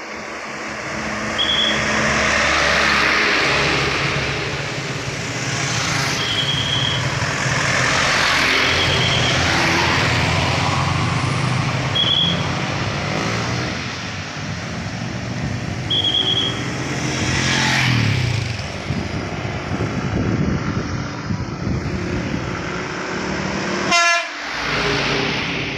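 Cars and a truck driving past through an intersection, engines and tyres swelling and fading as each goes by. Short single-pitched whistle blasts sound every few seconds, typical of a traffic marshal's whistle, and a sharp knock comes near the end as the truck passes.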